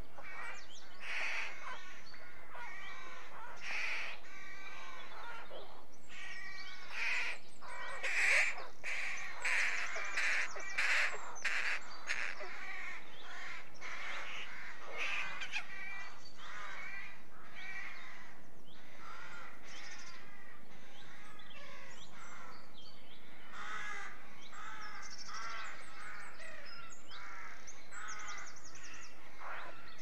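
A nesting colony of rooks cawing, many overlapping calls at once, loudest and busiest about eight to twelve seconds in.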